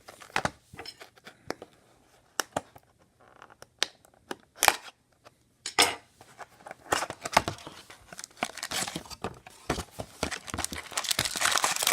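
A sealed trading card hobby box being unwrapped and opened by hand: plastic wrap tearing and crinkling, with scattered cardboard clicks and taps. The crinkling grows dense near the end.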